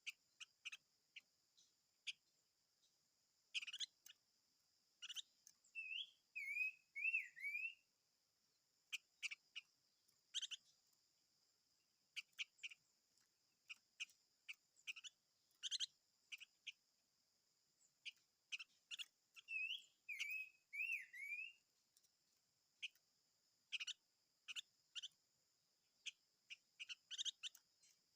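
A songbird calling in short, sharp chirps at irregular intervals, with a brief phrase of wavy, gliding whistled notes twice, about six seconds in and again about twenty seconds in. A faint steady hiss runs underneath.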